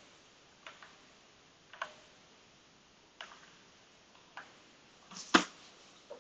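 Separate key presses on a Keychron V2 mechanical keyboard with Gateron Brown switches: single clicks about a second apart, with one louder knock a little after five seconds in.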